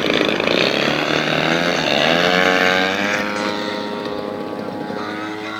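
Large RC model plane's 55cc DLE single-cylinder two-stroke petrol engine running with its propeller. Its pitch rises about two seconds in, then holds steady as the sound slowly fades a little.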